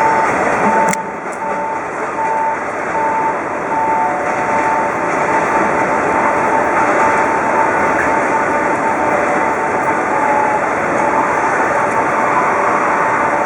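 A repeating electronic beep, about one and a half a second, over steady rushing rail noise; after a few seconds the beeps run together into a near-steady tone.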